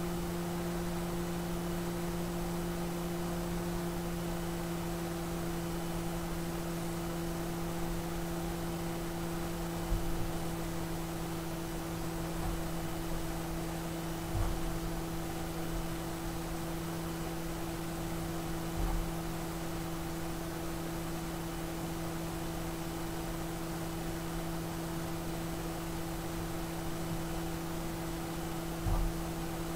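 Steady electrical hum with two strong tones, typical of a small electric device running, with a few faint soft knocks here and there.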